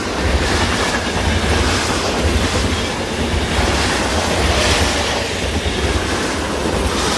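Train running on rails: a steady, loud rumble with a broad rushing noise over it.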